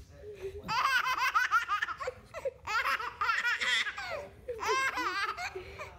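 A baby laughing in three bouts, each a quick run of high-pitched laughs.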